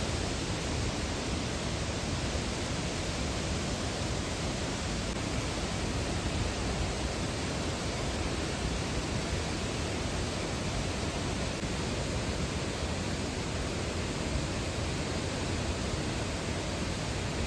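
Thirparappu Falls in flood: a torrent of floodwater pouring over the falls and churning below, heard as a steady, unbroken rush.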